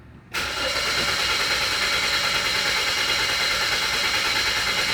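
2016 Suzuki Ignis engine being cranked by its starter motor, starting suddenly about a third of a second in and going on steadily without the engine catching: a no-start that the mechanic puts down to an ECU fault.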